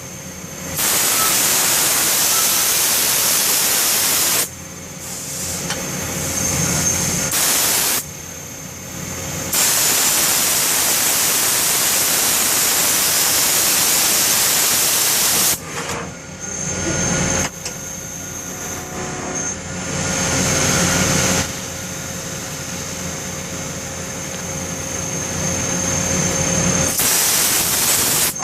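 1997 Cincinnati Milacron Avenger 200S CNC lathe running a cycle. Several spells of loud, even hiss each last a few seconds and switch on and off abruptly, between quieter stretches of machine running with a steady whine.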